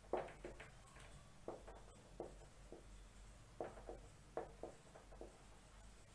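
Marker pen squeaking and rubbing on a whiteboard as words are written, in short irregular strokes.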